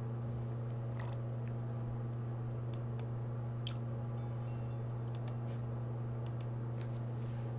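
Steady low hum with a few faint clicks scattered through it: room tone with no speech.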